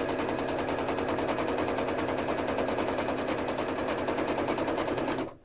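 Sewing machine stitching at speed, a rapid, even chatter of needle strokes sewing a piece down onto the fabric wall hanging. It stops abruptly about five seconds in.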